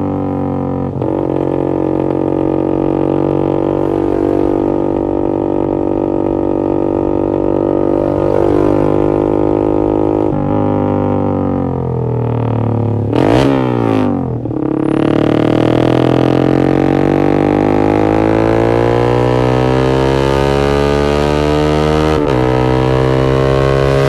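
Yamaha MX King 150's single-cylinder four-stroke engine running through an X1 Speed Racing SH-01 aftermarket exhaust, heard from the rider's seat while riding. A steady droning note gives way, about halfway through, to a quick rev up and sharp drop, and then the pitch climbs steadily as the bike accelerates, with a brief dip near the end.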